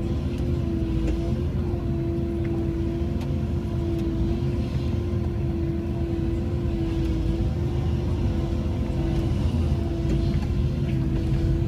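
Cat 312E excavator running steadily, heard from the cab: a constant whine over the low rumble of the engine as the boom and felling head are worked.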